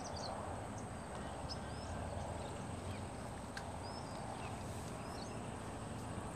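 Outdoor ambience: a steady low rumble with scattered short, high bird chirps, about half a dozen spread through it.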